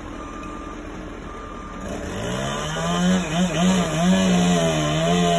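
A chainsaw revs up about two seconds in and runs at full throttle, its pitch wavering slightly. Before it, a short high beep repeats about once a second, like a vehicle's reversing alarm.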